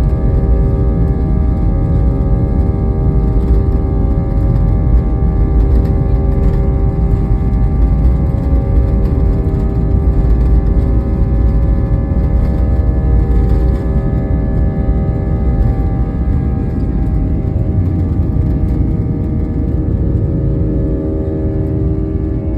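Airliner jet engines at takeoff power: a loud, steady deep rumble with a steady multi-pitched whine on top.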